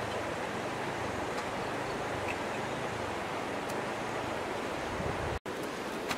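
Steady rushing of flowing stream water, with a faint tap or two; the sound cuts out for an instant about five seconds in.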